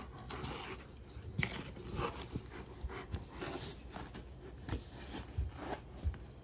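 A young Bernese mountain dog mouthing and tugging at the edge of a fabric rug on a wooden floor: faint rustling and scraping with scattered small knocks.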